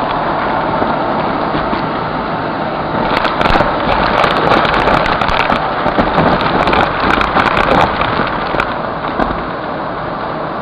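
Vacuum cleaner running steadily as its wand sucks up glitter, sequins, foil scraps and small beads off a hardwood floor. The debris crackles and clicks as it is pulled in, thickest from about three seconds in until about eight seconds, when the sound is at its loudest.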